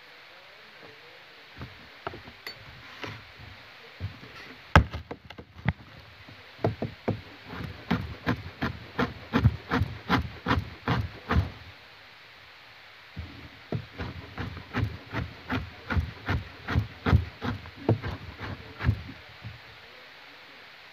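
Kitchen knife chopping on a cutting board: a few scattered knocks, then a steady rhythm of sharp chops about two to three a second, with a short pause before a second run of chopping.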